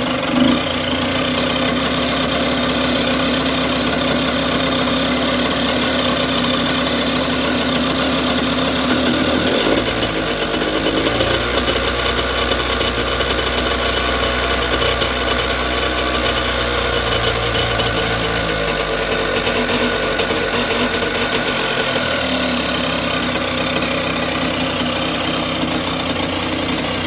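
Yamaha YZ85's two-stroke single-cylinder engine running at idle. Its engine note shifts for about ten seconds in the middle, then settles back to the same steady idle.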